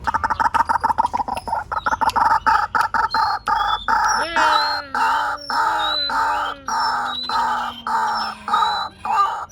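White-breasted waterhen calling: a series of harsh repeated notes, rapid at first, settling into a steady call about two to three times a second. From about four seconds in, a lower, wavering drawn-out note sounds underneath.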